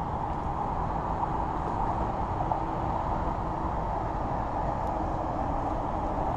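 Steady outdoor background rumble with no distinct events.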